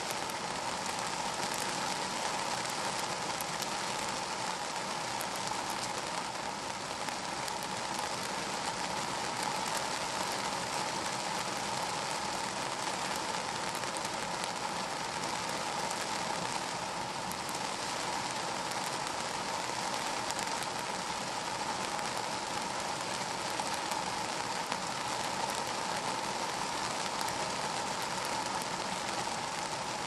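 Steady rain falling on a car's roof and glass, heard from inside the cabin: an even wash of rain with many small drop hits, unchanging throughout.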